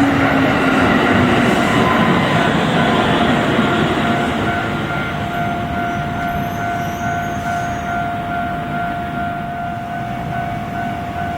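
Kintetsu Osaka Line train running over the level crossing, with dense wheel-and-rail noise that eases a little after about four seconds. From about five seconds in, a steady high tone comes through.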